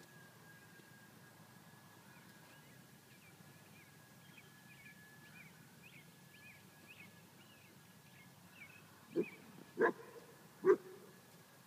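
A dog barking three times in quick succession, about a second apart, near the end.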